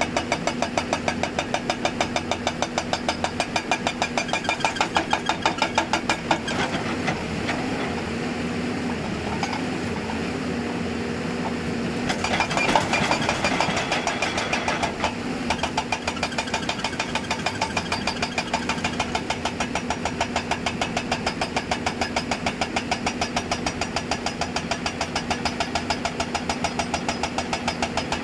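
Hydraulic breaker hammer on a Hyundai 290 excavator pounding in a rapid, steady rhythm over the diesel engine. The blows pause for several seconds about a quarter of the way in, with a louder rough burst near the middle, then start again.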